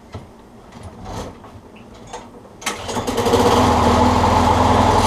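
Craftsman 6.5 horsepower push mower engine starting about two and a half seconds in, then running steadily. Before that there are only a few light knocks.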